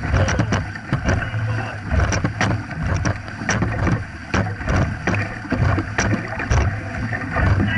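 Dragon boat crew paddling hard, paddle blades splashing and pulling through the water in a fast rhythm of sharp splashes, over the rush of water along the hull.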